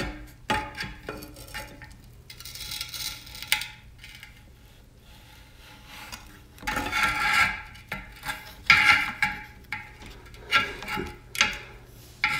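Tongue-and-groove pliers gripping and turning a plastic mounting nut on the underside of a toilet tank. Metal jaws scrape and click on the plastic in irregular strokes, with a quieter stretch in the middle and busier work near the end.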